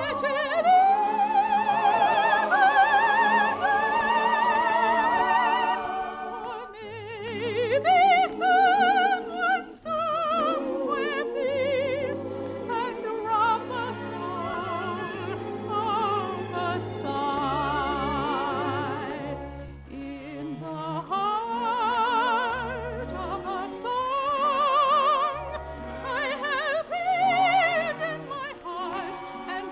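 Operatic soprano singing with wide vibrato, holding long high notes over an orchestra playing sustained bass notes.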